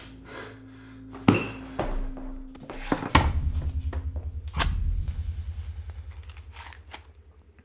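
A few sharp knocks or thuds, then a low, rapidly pulsing rumble that slowly fades away.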